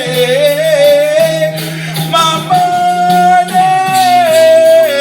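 Hip-hop song playing loud, with a sung vocal hook of long held, gliding notes over a steady low bass note.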